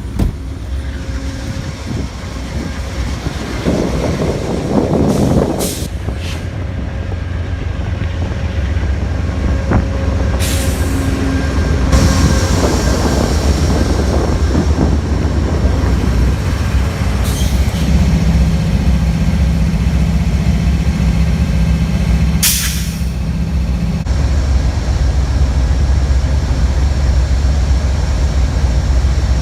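Train running, a steady heavy low rumble with a few short hisses spread through it.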